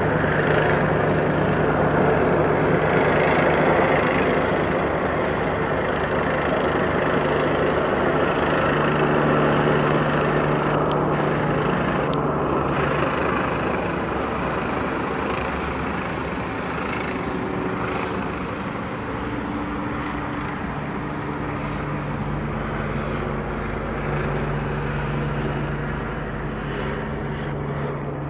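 Police helicopter flying overhead: a steady drone of rotor and turbine engine that slowly fades over the second half as the aircraft moves away.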